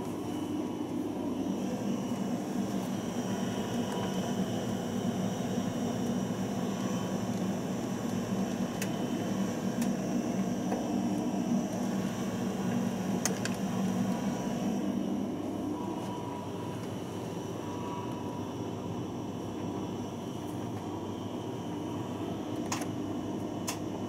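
Steady low mechanical hum, like a fan or motor running, that eases off somewhat about two-thirds of the way through, with a few faint clicks.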